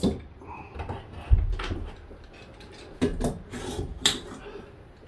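Hand-held window scraper scraping old bonding adhesive off the van's ceiling panels in short, irregular strokes, with clatters and a dull thump about one and a half seconds in.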